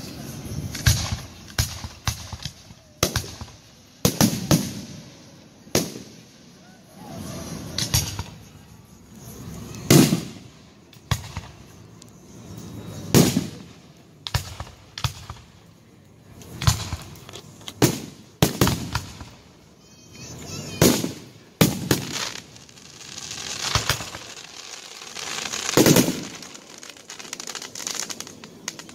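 Aerial fireworks shells bursting in quick succession: a rapid series of sharp bangs and deeper booms, often one every second or so, the loudest about ten seconds in and again near the end.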